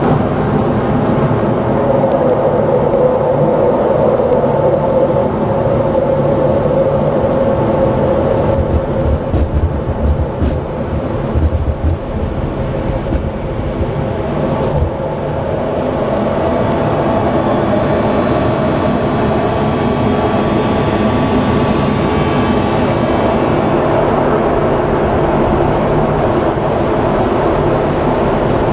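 F-16 fighter's jet engine heard from inside the cockpit during the takeoff run and climb-out: a loud, steady roar with several steady tones through it. A rough, uneven low rumble from the wheels on the runway comes about a third of the way in, and the sound evens out soon after the middle as the jet leaves the ground.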